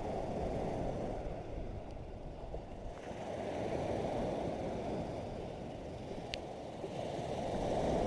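Sea surf breaking on a sandy beach, a steady wash that swells and eases with the waves. A single brief click sounds about six seconds in.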